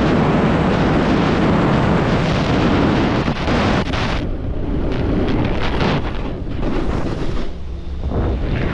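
Wind rushing over the microphone and a snowboard sliding and carving over packed snow at speed. About four seconds in the rush thins and breaks up into uneven patches.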